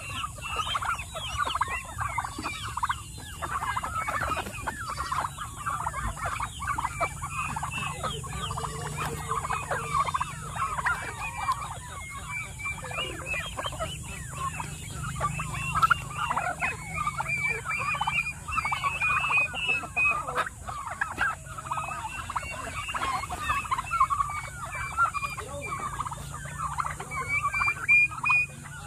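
A flock of domestic turkeys, with chickens mixed in, calling nonstop: many short calls overlapping one another.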